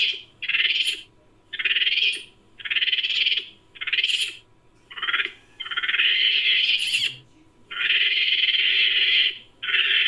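Sound-effect calls for a Japanese macaque: a series of about eight raspy, high-pitched calls, mostly short, with two longer ones of over a second in the middle.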